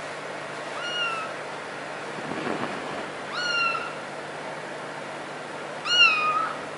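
Kitten meowing three times in high-pitched, short calls about two and a half seconds apart, the last one the loudest.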